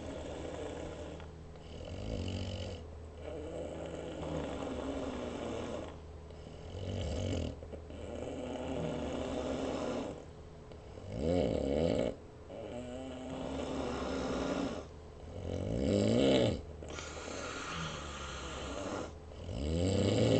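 Snoring in repeated long breaths every few seconds. The loudest, pitched snores come about halfway through, near three-quarters and at the end.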